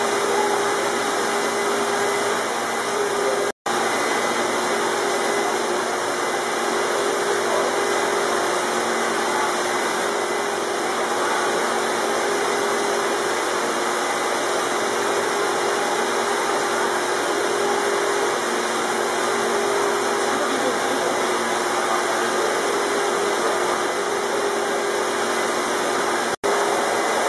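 Steady whirring and rushing noise with a faint low hum, typical of the pumps and water circulation of indoor turtle rehabilitation tanks. It cuts out for an instant twice.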